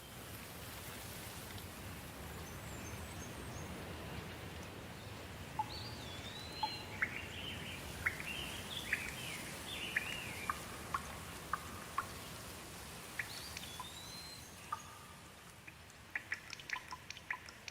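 Steady rain with a bird calling over it in short whistled notes through the middle, including an arching whistle heard twice. Near the end the rain thins and a quick run of close drips takes over.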